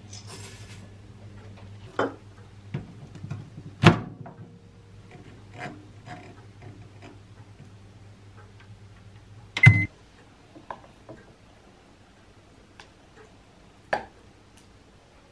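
Microwave oven running with a steady low hum, which stops about ten seconds in with a loud clunk and a short beep. Dry flakes are poured into a bowl at the start, and there are scattered clinks of dishes and a spoon on the bowl.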